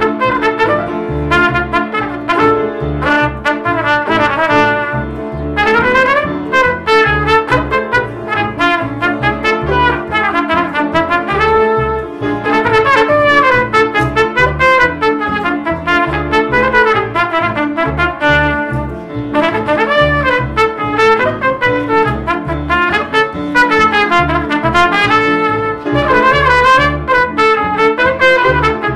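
Trumpet playing an ornamented Yiddish folk melody over a plucked double bass keeping a steady beat of short low notes.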